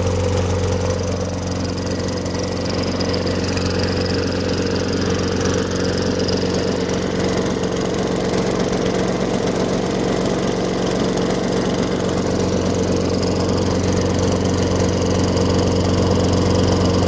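Small lawn mower engine running at a steady speed. The owner says its carburetor is leaking fuel badly, with the needle seat nearly gone, so the engine is flooding itself.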